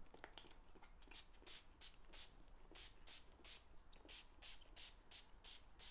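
Hand-pump mist spray bottle of leather sealant being pumped over and over onto a handbag. It gives faint, short hisses, about three a second.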